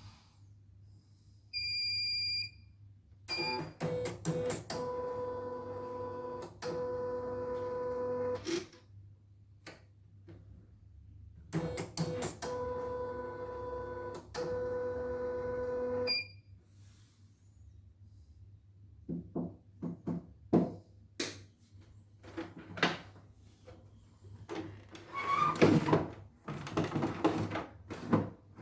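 CNY E900 computerised embroidery machine giving a short beep, then running its stitching mechanism twice for about five seconds each: a steady motor hum with rapid needle clicks. Near the end come scattered knocks and clicks of the machine being handled. The machine is in its fault state, which the repairer calls heavy (berat).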